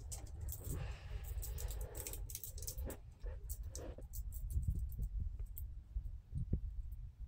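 Eastern gray squirrel gnawing a nut, making a rapid, irregular series of small dry crunching clicks over a steady low rumble.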